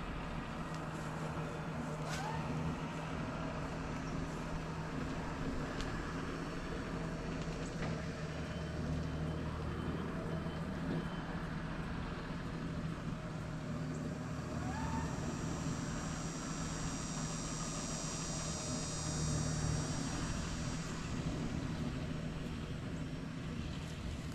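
A steady, low motor hum runs underneath, with a few faint clicks. A high, shrill buzz swells in past the middle and fades out near the end.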